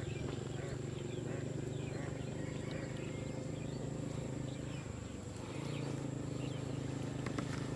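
Rural outdoor ambience: a steady high insect drone with scattered short bird chirps over a steady low hum.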